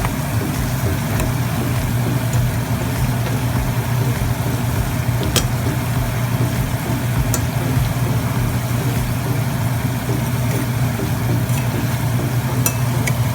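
Banana slices frying in oil and melted sugar, sizzling steadily over a steady low hum, with a few sharp clicks of a utensil against the pan.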